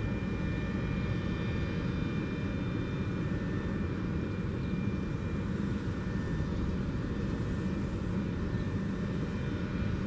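Federal Signal 3T22 outdoor warning siren sounding during a test, its tones faint and steady under a continuous low rumbling noise that is the loudest thing heard.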